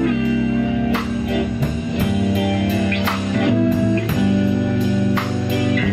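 Live band playing a slow blues: electric guitar with sustained notes over a drum kit, cymbals ticking a steady beat.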